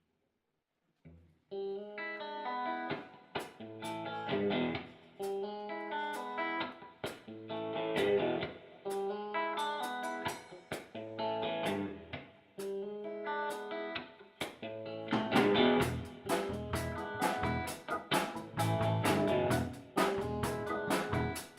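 Blues band's instrumental intro: an electric guitar plays a repeating riff, starting about a second and a half in. The playing grows fuller and louder about fifteen seconds in.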